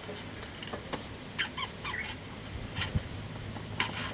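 Faint handling noises as a hand works the drain tap at the bottom of a car radiator: scattered light clicks and scrapes, a few short squeaky chirps about one and a half to two seconds in, and a dull knock about three seconds in.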